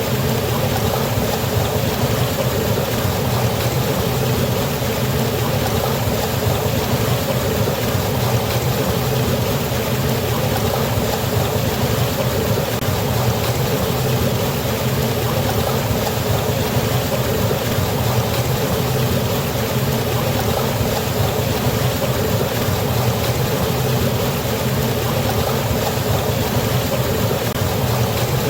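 Waterfall or fast river water rushing steadily, a constant loud roar with no changes.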